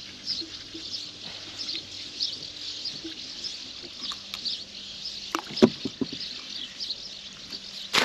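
A zander handled at the side of a boat, with a few sharp knocks about five and a half seconds in, then dropped back into the water with a splash at the very end. Faint high bird chirps go on throughout.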